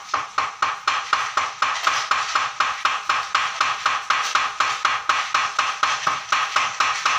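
Bent aluminium extrusion rail being tapped through a cloth pad to straighten it after heating with a gas torch: steady, rapid knocks, about four a second, each with a short metallic ring.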